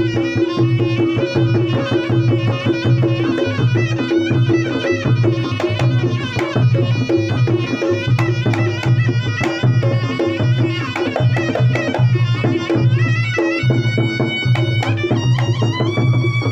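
Reog Ponorogo gamelan music: a slompret (Javanese shawm) plays a wavering, ornamented melody over a steady, regular beat of kendang drums and low percussion.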